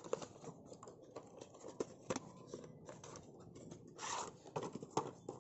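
Cardboard firework box being handled and opened by hand: faint scrapes and clicks, with a louder sliding scrape about four seconds in as the firework tube is pulled out of the box.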